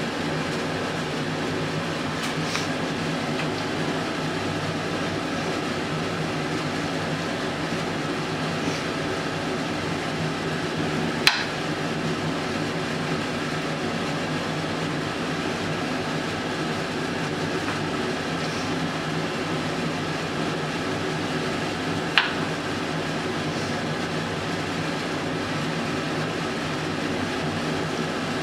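A steady, unchanging mechanical hum, like a fan or appliance running, broken by two sharp knocks, the first about eleven seconds in and the second about eleven seconds later.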